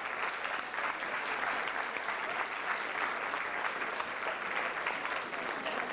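A large audience applauding steadily: a dense, even patter of many hands clapping, greeting a prize winner as her name is called.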